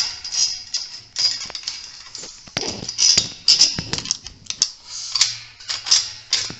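Irregular clicks, clinks and rustling of small metal hardware being handled: long bolts being pushed through a metal antenna mounting clamp and bracket.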